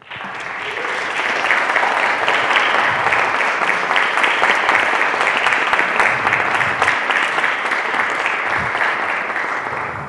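Audience clapping, building up over the first second, holding steady, then dying away at the end.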